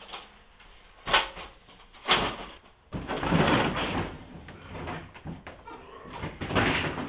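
Thule hard-shell plastic roof cargo box being handled and pulled off a wooden shelf: a knock about a second in and another a second later, then a longer stretch of scraping and bumping, and more bumping near the end.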